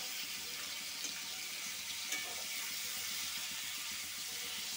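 Head-on prawns frying in hot oil in a wok, a steady sizzle, with a couple of faint clicks about one and two seconds in.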